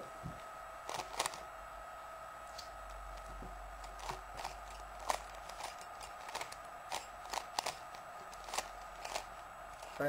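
Plastic layers of a Rubik's Cube clicking as they are turned by hand through a G-permutation algorithm: about twenty short sharp clicks at uneven intervals, over a faint steady hum.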